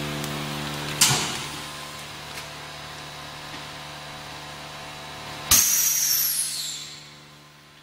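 Belt-type vacuum packaging machine running with a steady hum, a sharp clack about a second in, and about five and a half seconds in a loud hiss of air, falling in pitch and fading over a second and a half.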